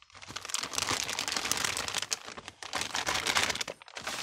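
Large plastic bag crinkling and rustling as it is handled and opened, a dense crackle that breaks off briefly near the end.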